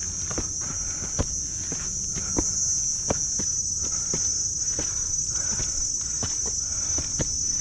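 Footsteps climbing a dirt and leaf-litter forest trail, one step about every two-thirds of a second, over a steady high-pitched drone of insects.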